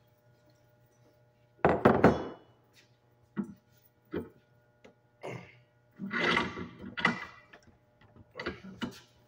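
Scrap copper pipe and brass fittings being handled and knocked about on a work surface: a loud clank with a short metallic ring about two seconds in, then scattered single knocks and a run of clattering in the second half.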